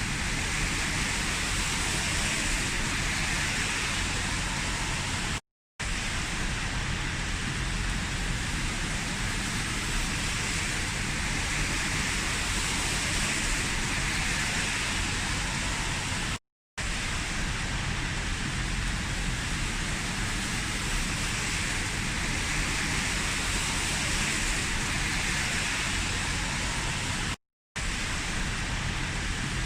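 Heavy rain falling as a steady hiss, which cuts out to silence for a split second three times, about eleven seconds apart.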